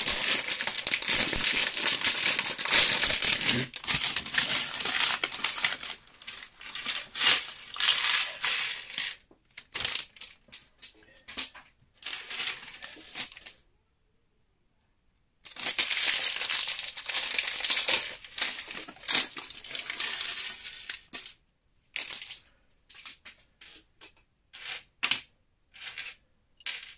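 Small plastic Lego pieces clattering as a bag of them is tipped out onto a tabletop and stirred around by hand. Dense rattling comes in two spells, at the start and again about halfway through, with scattered clicks of single pieces between and near the end.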